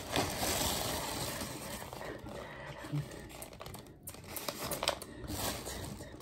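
A thin plastic carryout bag and a foil-lined paper sandwich bag crinkling as they are handled. The rustling is loudest in the first two seconds, then breaks into scattered sharp crackles.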